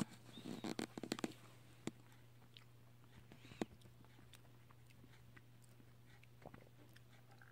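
Squirrel scrabbling and rooting in bed covers: a burst of rustling and sharp clicks in the first second and a half, then a few scattered faint ticks.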